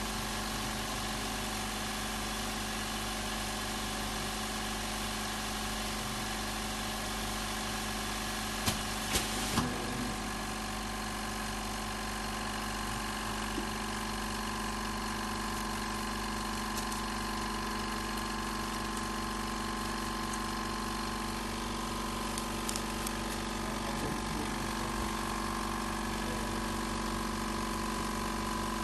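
Steady hum of running workbench machinery, made of several even tones, with three short clicks about nine seconds in and a few fainter clicks later.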